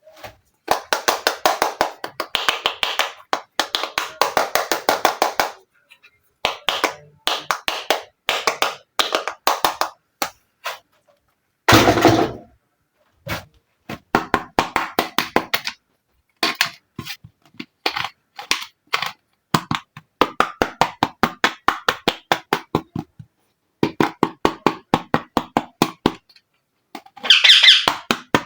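Miniature plastic toy kitchen pieces being handled, giving fast runs of small clicks and taps in bursts of a second or a few seconds. A louder, fuller clatter comes about twelve seconds in and again near the end.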